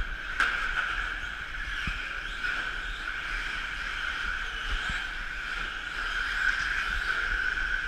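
Several electric 1/10-scale 4x4 short course RC trucks racing on a dirt track: a steady high whine of their motors and drivetrains over tyre noise, with one sharp knock about half a second in.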